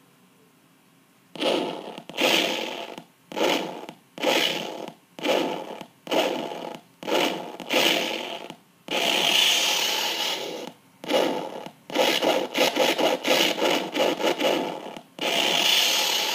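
Prop sword sound module playing its swing sound effects through a small 1 W amplifier and toy speaker. The sound starts about a second in: a string of short whooshing swings, then a held tone of about two seconds, a fast flickering run, and another long one near the end. These are low-sample-rate (20k) sound files, thin and harsh through the small speaker.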